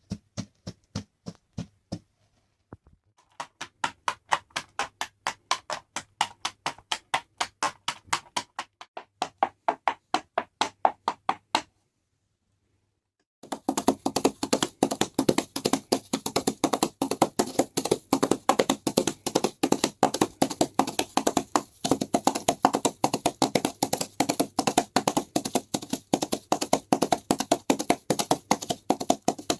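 Foley horse hoofbeats: evenly spaced clip-clops at about three a second, then after a short silence a faster, denser run of clops, about halfway through.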